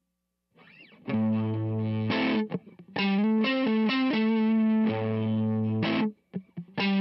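Fender Stratocaster electric guitar played through a DOD Overdrive Preamp 250 pedal, with an overdriven tone. It plays short phrases of held chords and notes starting about a second in, with brief pauses around two and a half seconds and just after six seconds.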